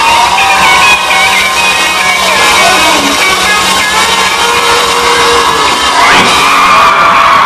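Live band playing over a cheering, screaming crowd, with a loud rising whoop about six seconds in.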